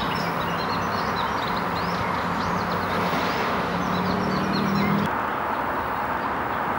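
Small birds singing in quick, repeated chirps over a steady rushing background noise, with a low steady hum that stops about five seconds in.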